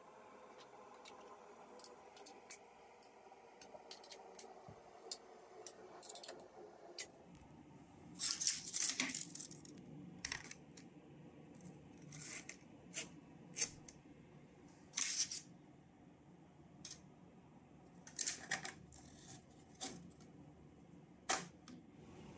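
Metal hold-down clamps and stock being handled on an aluminium T-slot bed: scattered clicks and clinks, with denser clusters of clattering about eight, fifteen and nineteen seconds in.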